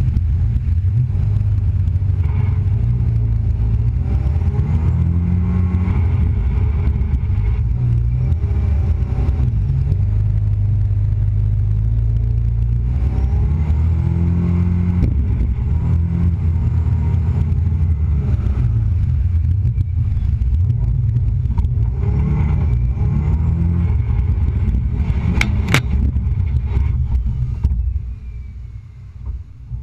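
Jettec 420 jetboat's turbocharged V6 engine running at speed, its note rising and falling several times with the throttle. A sharp click comes a few seconds before the end, and then the sound fades away.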